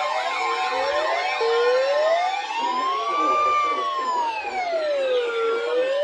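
Several sirens sounding at once: quick overlapping up-and-down sweeps, then a strong wail comes in about a second and a half in, rising and falling slowly about once every four seconds.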